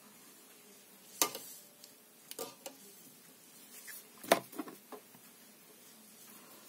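About five light, sharp taps and clicks against a quiet room, the loudest a little over four seconds in.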